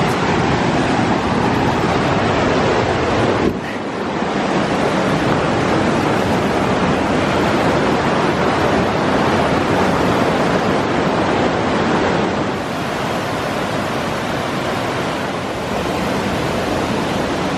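Fast-flowing river water rushing loudly and steadily, with a short drop about three and a half seconds in.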